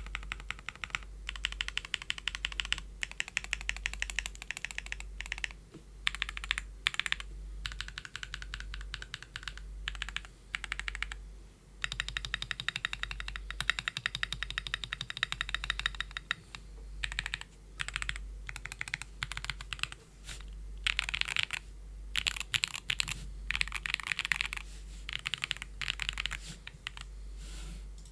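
Mechanical keyboard typing in bursts of fast keystrokes with short pauses: a TKD Cycle7 with an aluminium plate, lubed Gateron Baby Kangaroo tactile switches and PBT keycaps, built without foam so it sounds loud and resonant. A few heavier strokes, likely the spacebar, stand out.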